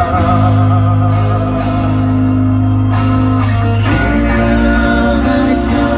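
Rock band playing live in an arena: electric guitars, bass and drums under a sung vocal line, with the cymbals getting louder about two-thirds of the way through.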